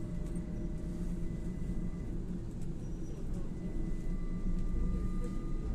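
Interior of a LAZ E301D1 trolleybus under way: steady low rumble of the ride, with thin steady electric whines from the drive and a faint whine that sets in about four seconds in and slowly rises in pitch.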